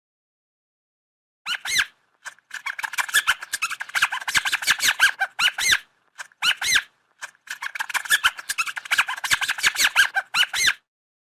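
Small rodent squeaking in quick runs of high, rapid squeaks. There are four bursts with short breaks between them, the two longest lasting about three seconds each.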